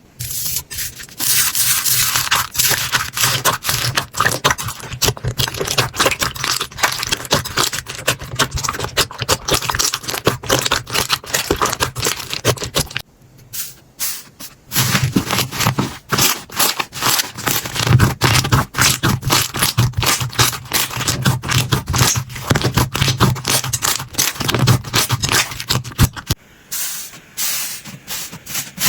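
Slime being squished and pressed by hand, giving a dense, loud run of crackling clicks and sticky rubbing, with two brief lulls, one near the middle and one near the end.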